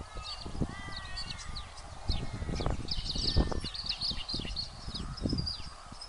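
Many birds chirping and calling at once, with short high chirps and trills throughout and a lower, drawn-out call with several parallel tones in the first second. Low rumbling buffets on the microphone run beneath the birdsong.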